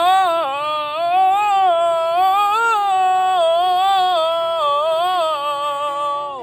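A single voice singing one long held 'ah' vowel as a vocal exercise, its pitch wavering slightly up and down. It ends near the end with a short downward slide.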